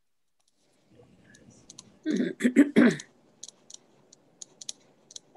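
Wooden spoon stirring a butter-and-flour roux in a stainless steel pan: scattered sharp clicks and scrapes of the spoon against the pan, with a louder cluster of knocks about two seconds in.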